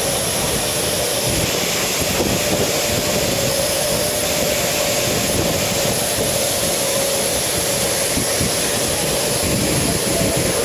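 Steady jet turbine noise with a constant high whine and a lower hum that stay level throughout, under irregular low rumbling.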